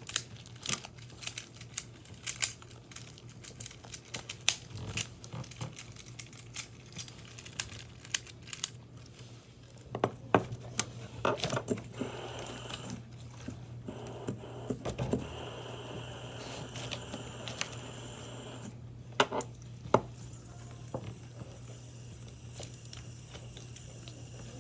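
Fidget toys handled close to the microphone: crinkling plastic and many sharp clicks and snaps, denser crackling from about the middle, over a steady low hum.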